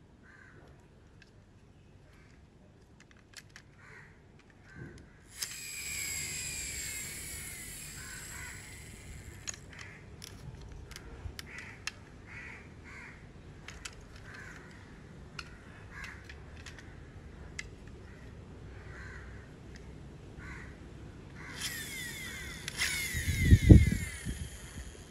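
Birds calling in two stretches, from about five seconds in and again near the end, over small clicks of a plastic toy truck being handled, with one heavy low thump near the end.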